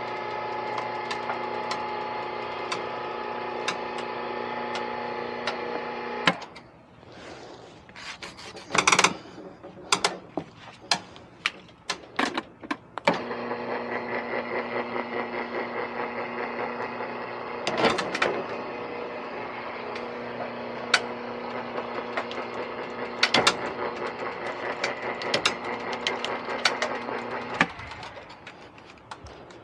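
A motor running with a steady hum stops abruptly, followed by a series of sharp knocks and clanks. The motor then runs again with a light regular ticking and cuts off near the end.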